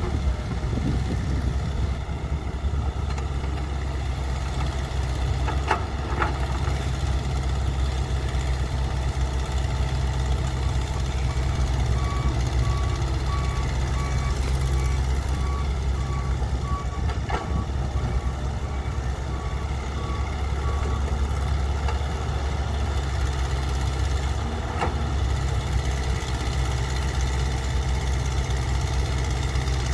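Diesel engines of an excavator and dump trucks running steadily with a low rumble, with a few sharp knocks as the excavator bucket loads soil into the dump truck's bed. A reversing alarm beeps evenly for several seconds in the middle.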